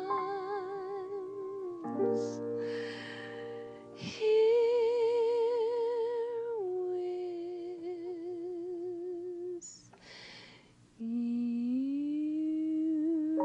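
Slow, gentle music of long held notes with an even wobble in pitch, like humming. Near the end it dips quieter, then comes back with a note sliding upward.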